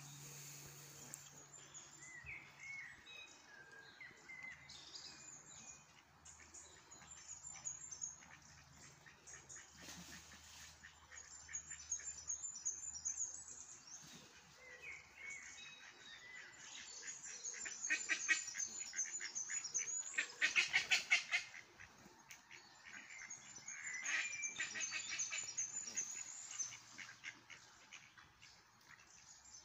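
Canada geese and mallard ducks calling as they forage, with small birds chirping and singing in the trees. Bursts of rapid calls come about eighteen and twenty seconds in, the loudest around twenty seconds, with more near twenty-five seconds.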